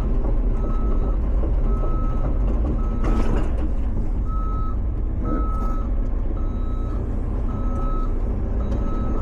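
Cat 320 excavator travelling in reverse: its backup alarm beeps steadily about once a second over the constant low rumble of the diesel engine, with a brief rushing noise about three seconds in.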